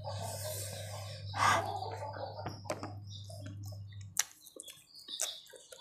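Close-up eating sounds: wet chewing and lip smacks as rice with chilli sambal is eaten by hand, with a few sharp clicks and one louder breath about a second and a half in.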